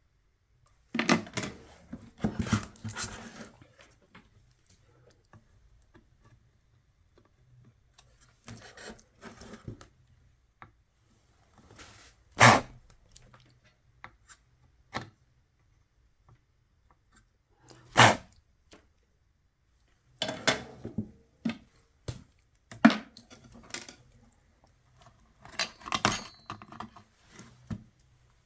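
Scattered clinks, clicks and knocks from small metal tools and parts being handled on an electronics workbench, with two sharper knocks about twelve and eighteen seconds in.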